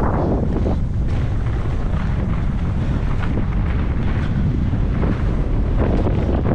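Wind buffeting the microphone of a mountain bike descending a trail: a constant low rumble, broken every second or so by short rattles and knocks from the bike going over bumps.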